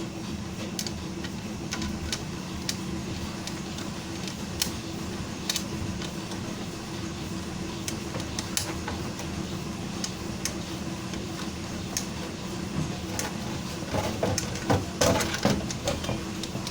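Scattered clicks and light knocks of metal computer parts being handled and fitted by hand, over a steady low hum. Near the end comes a busier run of knocks.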